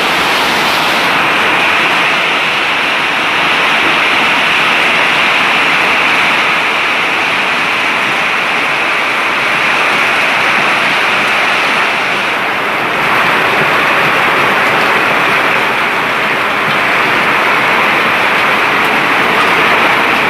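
Hailstorm: hail and heavy rain falling, a loud, steady, dense hiss that eases briefly about two-thirds of the way through.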